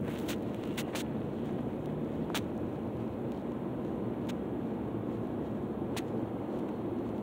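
A steady low rumble of background noise, like traffic or a running vehicle, with several sharp clicks: a cluster in the first second, then single ones spread through the rest.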